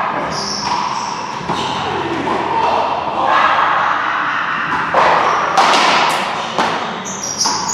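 Irregular thuds and knocks, several sharp impacts a few seconds apart, over background voices in a large, echoing room.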